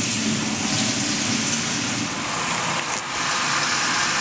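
Water pouring from a hose wand into a steel pail, a steady rushing hiss as the pail fills.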